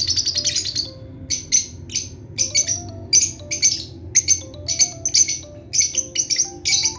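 Lovebirds chirping in short, sharp bursts: a continuous chatter for the first second, then separate chirps roughly twice a second, over soft background music with a simple melody.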